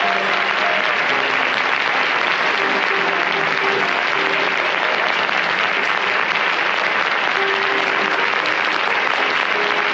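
Audience applauding steadily, with music playing faintly underneath.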